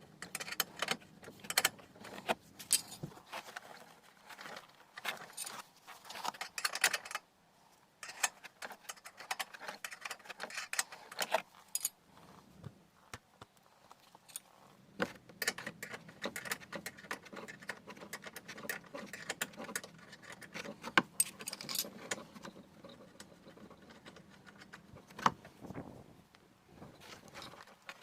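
Irregular metallic clinking and rattling of hand tools and small parts, full of sharp clicks, which pauses briefly twice.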